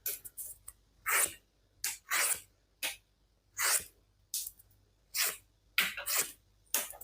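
A QSP Hedgehog folding knife's 14C28N stainless blade slicing thin strips from embossed chrome-tanned leather: a series of about ten short slicing strokes, roughly one a second, cutting through easily.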